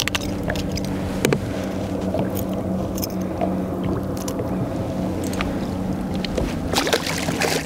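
A boat motor running with a steady low hum. Over it come scattered clicks and knocks from a landing net with a pike in it being handled, busiest near the end.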